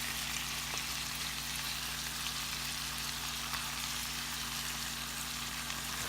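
Sliced roast beef frying in oil in a pan: a steady sizzle with many small crackles, over a steady low hum.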